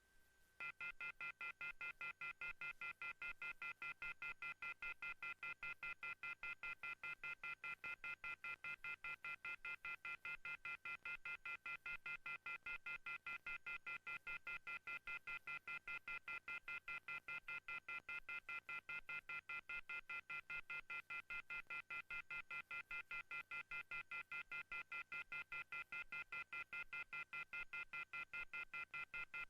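Telephone off-hook warning tone (the howler): a chord of several high tones beeping on and off rapidly, about five times a second, starting about half a second in. It is the signal that follows the "please hang up and try again" recording and means a phone has been left off the hook.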